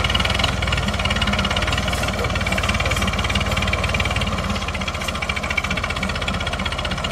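Massey Ferguson 240 tractor's three-cylinder diesel engine running steadily with a fast, even firing beat while it moves a heavily loaded trolley.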